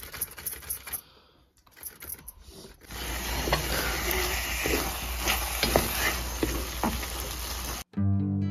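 Carrots rasped on a hand grater in quick strokes. Then, from about three seconds in, grated carrot cooks in ghee in a kadhai with a steady sizzle, while a spatula stirs and knocks against the pan. Guitar-like music starts abruptly near the end.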